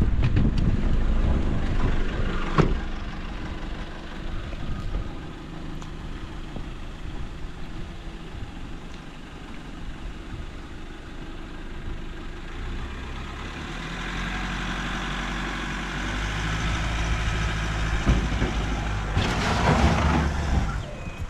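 4WD ute's engine running, then building in revs as the ute climbs a steep sandy dirt mound, with a loud rush of tyres spinning and throwing dirt near the end.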